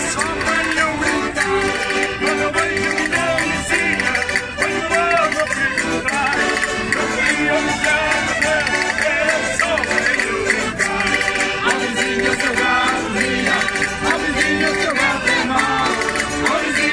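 A Portuguese folk group singing a song to its instruments, with a hand-held wooden scraper (reco-reco) rasped in rhythm.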